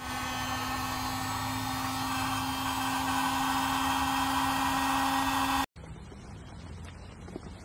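Small electric air pump running steadily with a whirring hum as it inflates an air mattress, stopping abruptly near the end.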